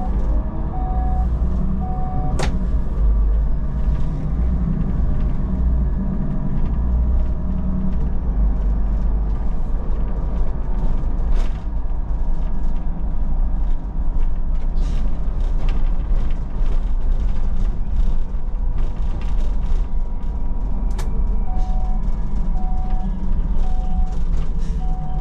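Low running rumble of a Solaris Urbino 12 city bus heard from inside, with rattles from the body. A short warning beep sounds about once a second at the start and again over the last few seconds, and a sharp click comes just after the first beeps stop.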